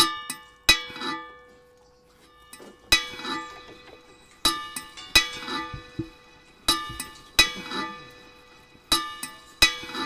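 Metal saucepans knocked by a dog's nose and mouth as it licks them, giving sharp clanks that ring on like bells. There are about a dozen hits in a loose, uneven rhythm, several coming in pairs less than a second apart.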